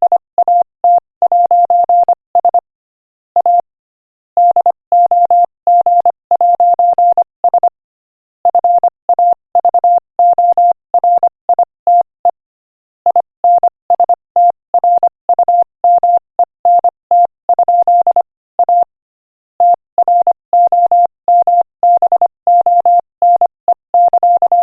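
Morse code at 25 words per minute: a single steady beep tone keyed on and off in quick dots and dashes, broken every few seconds by short pauses between words.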